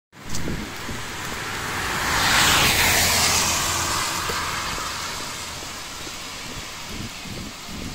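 A car driving past on the road, its tyre and road noise swelling to a peak about two and a half seconds in and then fading as it moves away.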